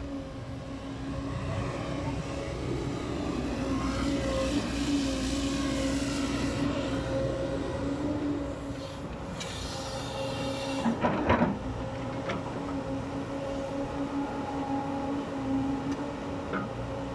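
JCB tracked excavator working: the diesel engine and hydraulics run under load with a steady hum and whine as the bucket digs soil and the boom swings. A brief, loud clatter comes about two-thirds of the way through.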